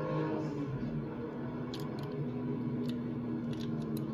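Light clicks and taps of a small die-cast toy car being handled and turned in the fingers, several in the second half, over a steady low hum.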